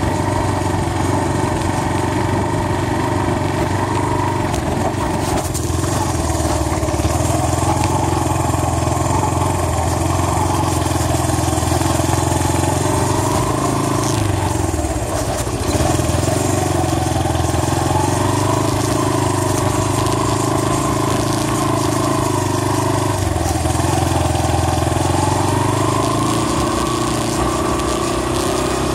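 ATV engine running while being ridden, its pitch rising and falling with the throttle and dipping briefly about halfway through.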